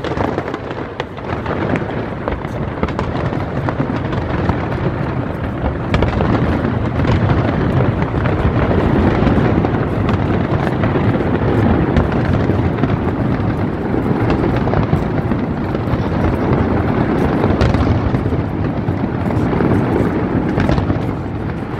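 Fireworks display in full barrage: many shells bursting at once, a dense, continuous rumble of booms and crackle with sharp bangs all through. It grows louder about six seconds in.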